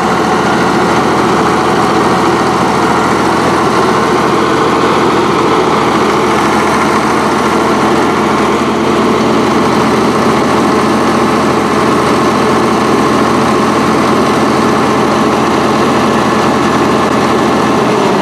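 Case 1150 crawler dozer's six-cylinder Case 401B diesel engine running steadily at an even speed.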